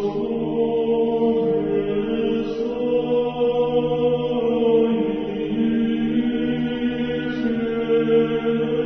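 Slow Orthodox church chant sung in long, steady held notes, with a slowly moving melody over them.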